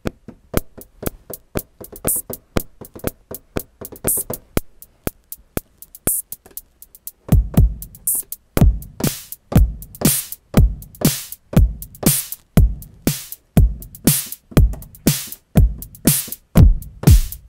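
Drum machine beat from Native Instruments Grey Forge drum synth kits: a fast pattern of ticking hi-hats and percussion, then a deep kick drum with a falling pitch comes in about seven seconds in, hitting about twice a second under bright hi-hat and clap hits.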